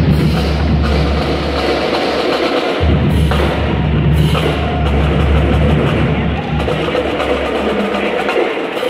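Marching drumline playing snare and bass drums together in a continuous rhythm. The deep bass-drum low end drops out briefly about two to three seconds in, then comes back.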